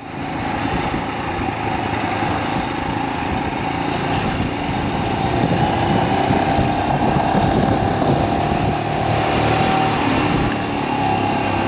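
Royal Enfield Himalayan's single-cylinder engine running steadily while the bike is ridden along a road, with wind noise.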